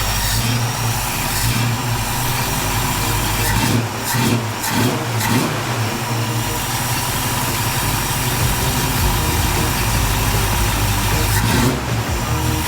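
1965 Ford Mustang engine running at idle, its revs rising and falling briefly about four seconds in. A slight knock is present that the owners take for a ping they are trying to cure, though it could also be just a rattle.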